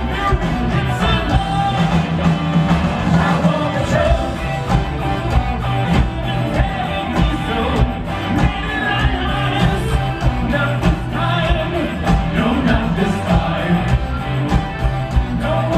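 A live rock band playing a song: electric guitars and a drum kit with a male singer, heard from the audience through a large hall's PA.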